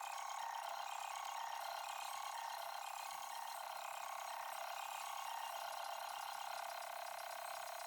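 Rapid mechanical clicking of a ratchet wrench at work, thin-sounding with no low end, starting and stopping abruptly like a cut-in clip.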